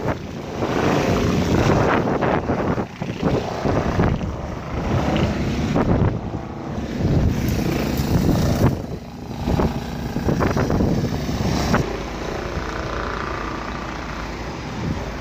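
Wind buffeting the microphone in uneven gusts, a rough rumbling noise that swells and dips.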